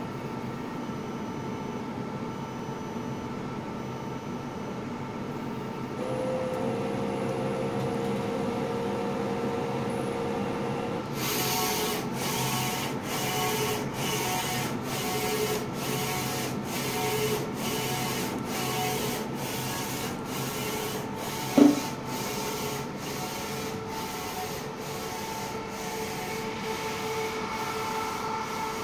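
24-inch inkjet film printer with four Epson printheads running: a steady machine hum at first, then from about a third of the way in its print carriage sweeps back and forth with a regular swish, about one pass every two-thirds of a second. A single sharp click about three-quarters of the way through.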